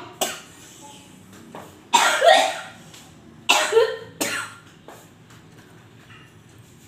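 A woman coughing several times in short, sudden bouts, the loudest about two seconds in.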